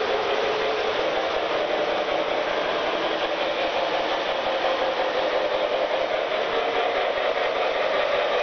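O gauge model train running on the layout: a steady mechanical hum and rattle of the locomotive's motor and wheels on the three-rail track.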